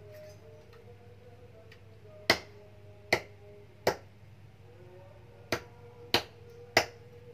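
A large knife chopping raw chicken against a wooden log chopping block: six sharp chops, three in quick succession a couple of seconds in, then three more near the end.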